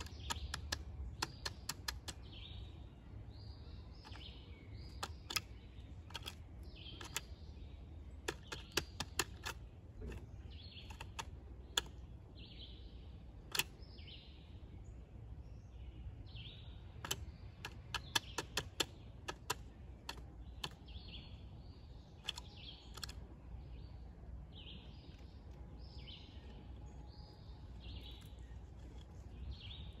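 Pileated woodpecker pecking and chiselling into a wooden landscape timber while digging out an ant nest to feed: irregular sharp knocks on wood, some in quick runs. Short high chirps repeat about once a second in the background.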